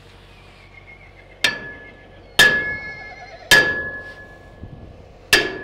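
Hammer striking a 2 7/8-inch steel pipe post, made of used oilfield pipe, to knock it snug into place: four blows about a second apart, each leaving a short metallic ring.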